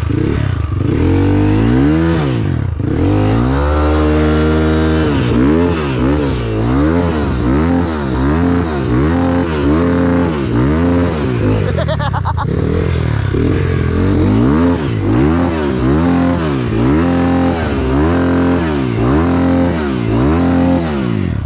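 Off-road motorcycle engine revved hard over and over, its pitch swinging up and down about once a second after a longer high hold a few seconds in: the bike fighting for grip on a difficult muddy track.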